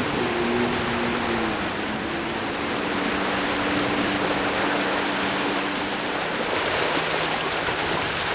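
Steady rushing noise of shallow sea surf washing along the shore. A faint low hum runs underneath, stepping down in pitch a few times.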